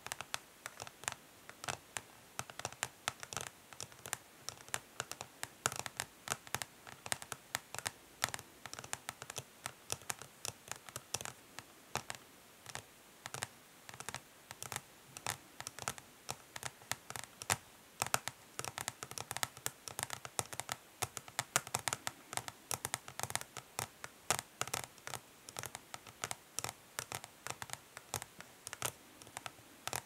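Long natural fingernails tapping fast and lightly on a plastic makeup palette, in quick irregular runs of crisp clicks, with short light scratches mixed in.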